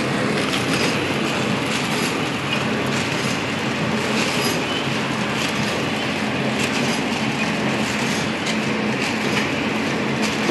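Ice candy packing machine running: steady mechanical clatter over a low hum, with scattered sharp clicks from its moving parts.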